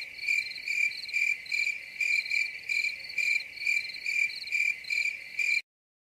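Crickets chirping, the stock comedy cue for an awkward, unresponsive silence: an even, high-pitched chirp a little over twice a second, each one a short rapid trill, cut off abruptly near the end.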